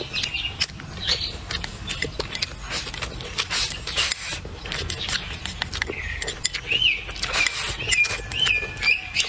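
Close-up eating sounds: rice being scooped from a bowl into the mouth with wooden chopsticks and chewed, with many small clicks and smacks. A bird chirps in the background with short, repeated up-and-down notes, clearest in the second half.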